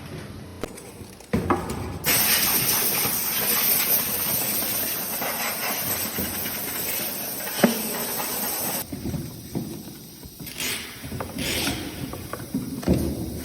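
A steady, loud hiss of blowing air starts about two seconds in and cuts off near nine seconds. A few short knocks and handling noises come before and after it.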